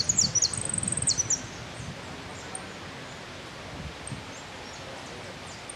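A jilguero finch singing a quick run of high, sharp notes and a fast trill, which stops about a second and a half in. After that only faint scattered chirps are heard over steady outdoor background noise.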